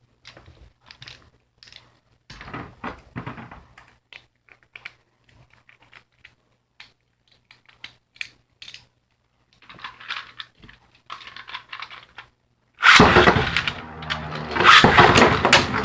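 Scattered plastic clicks and taps of Beyblade parts being handled and set up, then, about thirteen seconds in, a sudden loud, continuous rattling clatter as two 3D-printed Beyblade Burst tops spin and collide in a plastic stadium.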